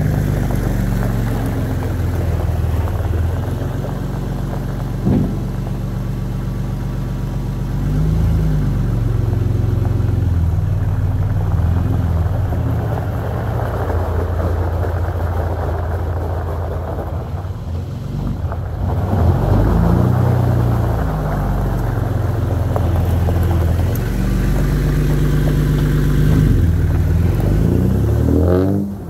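Diesel engine of a Volvo 6x6 camper truck running while it manoeuvres at low speed, rising and falling in pitch three times as it is revved and eased off, with a short knock about five seconds in.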